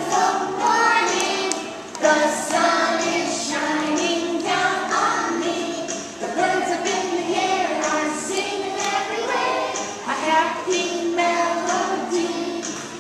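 A group of young children singing a song together, with short breaks between phrases.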